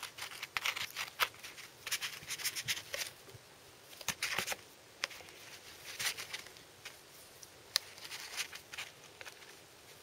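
A magnet being scraped and tapped over a small gunked-up engine oil strainer on paper towel, while checking it for metal filings. Scattered light clicks and scratches come in small clusters throughout.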